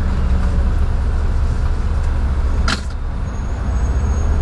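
Car engine idling, a steady low hum heard from inside the cabin, with one sharp click or knock a little over halfway through.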